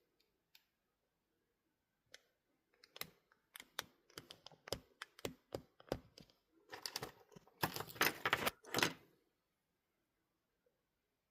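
A quick, irregular run of sharp clicks and taps. It starts about three seconds in, gets faster, and turns into a dense clatter for about two seconds before stopping.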